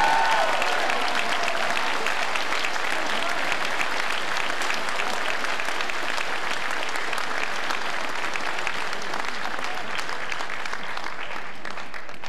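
A large audience applauding steadily, many hands clapping at once; the applause cuts off abruptly at the end.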